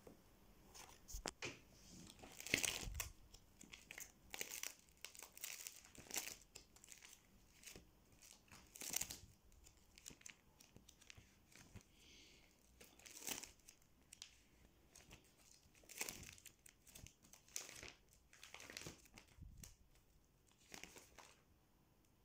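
Faint crinkling of clear plastic photo-album sleeves as the pages are handled and turned, coming in short irregular bursts with brief quiet gaps.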